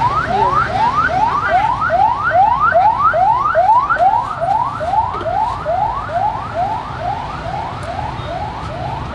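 An emergency-vehicle siren in yelp mode: quick rising whoops, about three a second, growing a little fainter in the second half, over a low rumble of street traffic.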